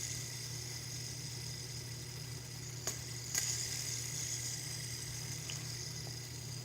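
Fidget spinner spinning with a steady, faint whirring hiss, with two light clicks about three seconds in.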